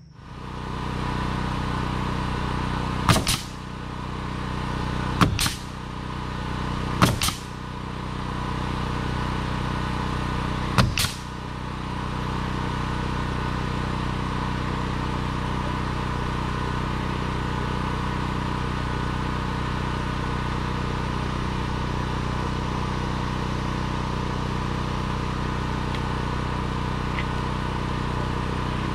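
A pneumatic coil nailer firing four sharp shots, driving nails into poplar bark siding, about two seconds apart and then once more after a longer pause, over a steady machine hum.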